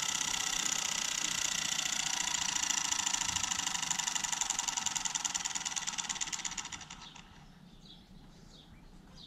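3D-printed pulse motor with an IGBT-switched commutator running with a fast buzzing pulse, then slowing and stopping about seven seconds in.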